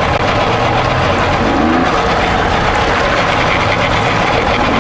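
Outboard engines of an RNLI inflatable lifeboat running at low speed, heard as a steady loud rush with a short rise in engine pitch about one and a half seconds in.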